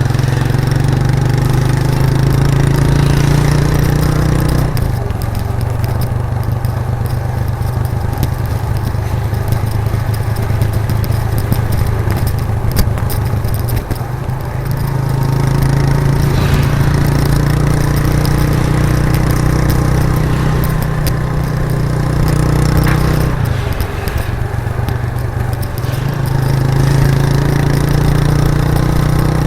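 1998 Suzuki GN125's single-cylinder four-stroke engine running through its raw exhaust while riding. The engine note falls away about five seconds in and again after about twenty-three seconds, then picks up again each time.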